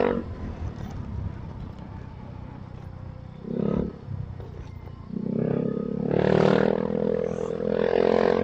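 Motorcycle engine heard while riding: the engine note drops away as the throttle eases, runs low for a few seconds with one short rise, then picks up again about five seconds in and holds strong, the pitch creeping gently upward.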